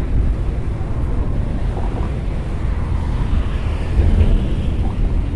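Wind rumbling steadily on the microphone, over the low engine drone and wash of a passenger ferry passing close by.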